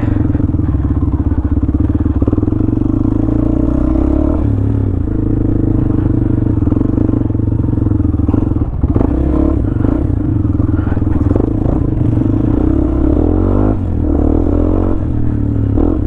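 Honda CB500X's parallel-twin engine running at low, steady revs on a dirt trail. The note drops briefly about four seconds in and rises and falls again near the end as the throttle changes.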